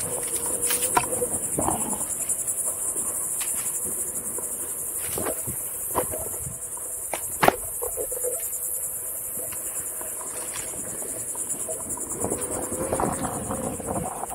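Steady high-pitched insect chorus over a Onewheel electric board rolling along a rough dirt trail. A faint motor whine comes and goes with its speed, and there are several sharp knocks from bumps, the loudest about seven and a half seconds in.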